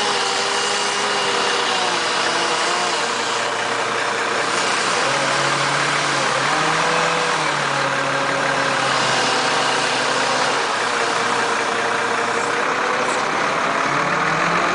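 A large engine running steadily near idle, its speed stepping up about five seconds in and again near the end.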